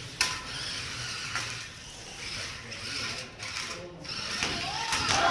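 Small 2 lb combat robots' gear motors whirring, with a few sharp clicks.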